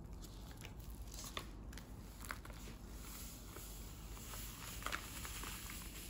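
Foil packet of cookie mix crinkling and crackling as it is opened and handled, with the dry mix pouring out of it into a glass bowl near the end.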